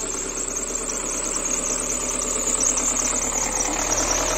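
Motorhome engine running at low speed as the vehicle creeps forward through a tight gap, steady throughout, with a high-pitched steady hiss over it.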